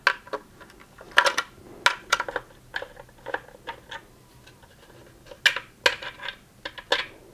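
Irregular sharp clicks and light taps of a screwdriver and fingers on the hard plastic casing of a Gtech AirRam vacuum's motor assembly as a screw is undone. The loudest clicks come a little over a second in and again around five and a half seconds in.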